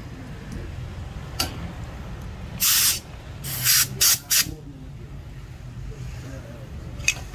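Four short bursts of hissing come in quick succession about three to four and a half seconds in, the first the longest, over a steady low hum.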